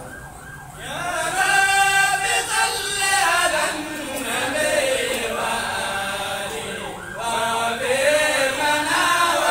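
Many voices chanting together, the melody rising and falling. There is a brief lull near the start and another about seven seconds in.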